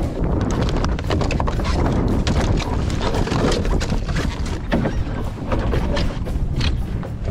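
Strong wind buffeting the microphone with a constant low rumble, under many irregular sharp taps and splashes of rain and water against the boat.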